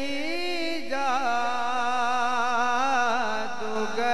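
A man singing a naat (devotional Urdu hymn) into a microphone, holding long, wavering notes with quick melodic turns.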